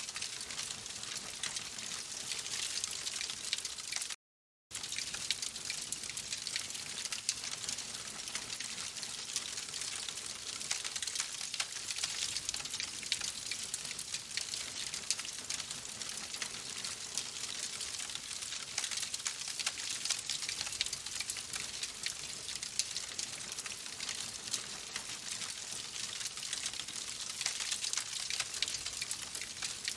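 Oak logs burning in a fireplace: a steady hissing crackle made of many small, dense pops. The sound drops out completely for about half a second around four seconds in.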